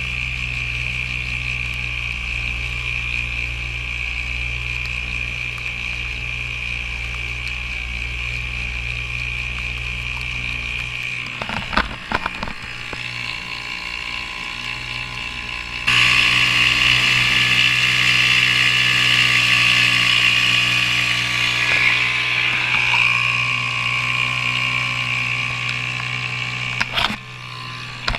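A 3 hp Sears outboard motor running steadily at speed, pushing an aluminium canoe, with water splashing along the hull. A few knocks come a little before halfway, and just past halfway the engine suddenly sounds louder and sharper.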